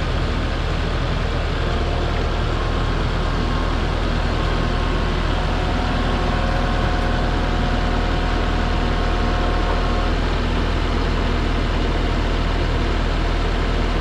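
Takeuchi TL6R compact track loader's diesel engine running steadily as the machine creeps backward.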